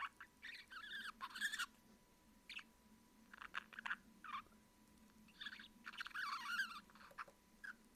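Budgerigar making soft squeaky "kyu-kyu" chirps and throaty chatter in short bunches of calls, about five bunches, the sounds of a tame bird snuggling up to be fussed over while held in a hand.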